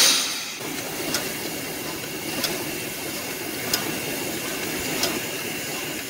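Steam hissing steadily from a Soviet L-class steam locomotive, venting around its cylinders and driving wheels, with a faint click about every second and a quarter. A louder gush at the very start dies down within half a second.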